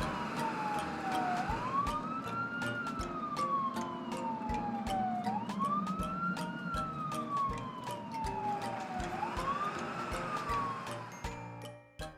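Ambulance siren wailing, each cycle rising quickly and then falling slowly, about once every four seconds, three times before it fades near the end. Cheerful background music with a steady beat plays underneath.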